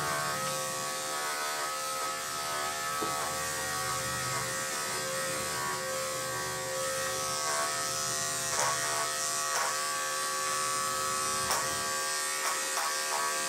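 Electric dog grooming clippers running with a steady buzz as they are worked through a thick coat, with a few light clicks in the second half.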